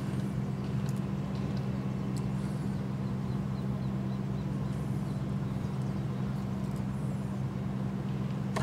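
A steady low hum of machinery, with a few soft ticks of a tennis ball being bounced on the clay before a serve and faint high chirps.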